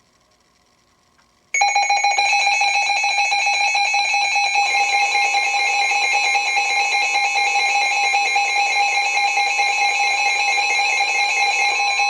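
NOAA Weather Radio receiver sounding its electronic alert tone for a tornado warning, here a statewide test. The tone starts suddenly about a second and a half in and holds loud and steady, with its texture changing a few seconds later.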